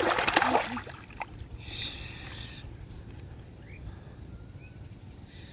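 Water splashing: a loud, sudden splash right at the start, a softer splash about two seconds later, then low steady background noise.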